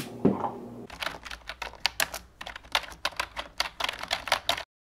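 Typing sound effect: a fast, irregular run of key clicks, like keys being typed, that stops abruptly near the end. It accompanies title text being typed out.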